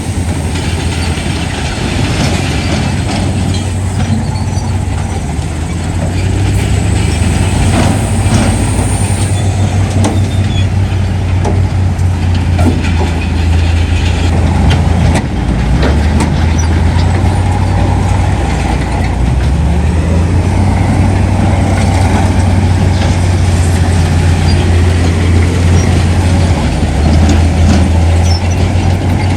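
Heavy diesel earthmoving machinery running steadily with a deep engine drone, with occasional metallic clanks.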